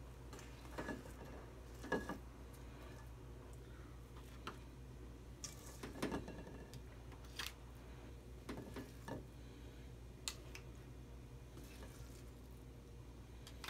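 Small metal spoons scraping and tapping against a stainless steel mixing bowl while scooping soft cookie dough, in faint scattered clicks and scrapes a second or two apart, over a steady low hum.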